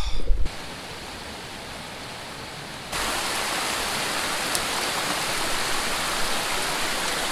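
Steady rush of flowing creek water, quieter at first and louder from about three seconds in. A brief low rumble at the very start.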